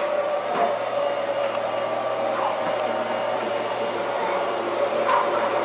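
Roidmi F8 cordless stick vacuum running steadily on its low power setting: an even whirring noise with a constant mid-pitched whine.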